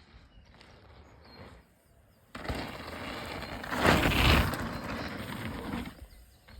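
Mountain bike rolling down a dirt trail: rattling tyre and drivetrain noise that starts suddenly about two seconds in, is loudest near the middle, then dies away.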